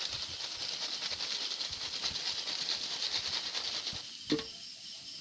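Cheese chicharon sizzling and crackling in hot oil in a wok, a dense spatter of fine crackles. About four seconds in the crackling drops off sharply, with one brief sharp sound.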